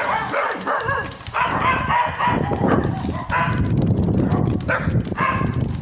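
A dog barking repeatedly in short calls over strong wind buffeting the microphone.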